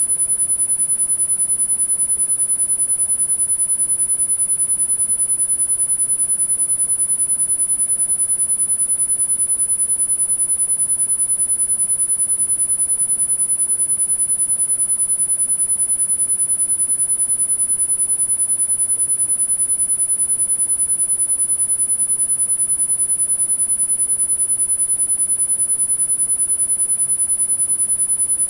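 A steady, high-pitched pure sine tone of about 10 kHz, a synthesized tinnitus sound-therapy tone, with a faint hiss beneath it.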